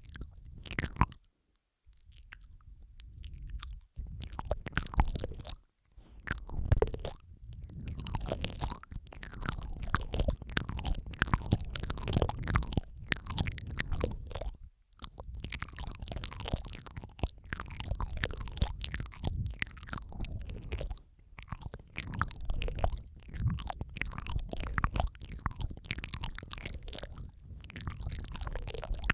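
Layered ASMR mouth sounds: dense, overlapping wet clicks and smacks of the mouth and tongue, breaking off briefly a few times.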